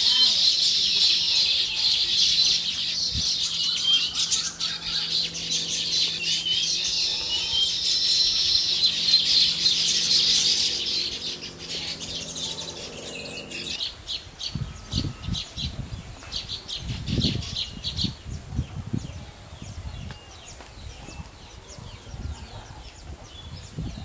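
A colony of baya weavers chattering and twittering, a dense high chatter that is loudest at first and thins out to scattered chirps about eleven seconds in. From about fourteen seconds, low irregular rumbles come and go under the chirps.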